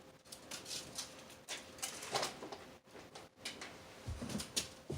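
Window blinds being closed: a string of faint, irregular rattles and clicks.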